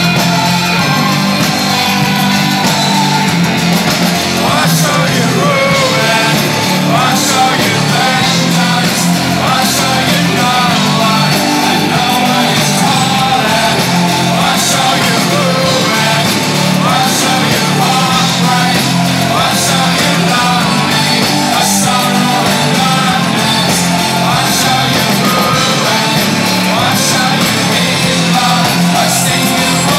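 Live rock band playing loud electronic rock, with drums, guitar and keyboards under a singer's vocals, heard from within the audience.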